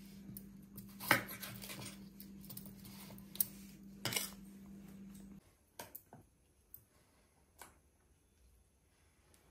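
Chef's knife chopping raw green banana on a wooden cutting board: a few sharp knocks of the blade hitting the board over a low steady hum. About five seconds in, the hum stops and only a few light clicks follow.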